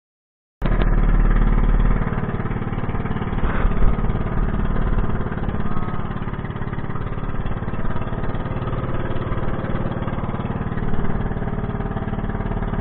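Outrigger bangka's engine running steadily while the boat is underway, starting after a brief moment of silence.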